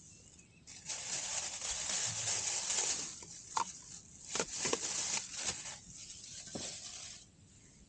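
Rustling and handling of camping gear, with a few sharp clicks and knocks in the middle. The rustle starts about a second in and stops shortly before the end.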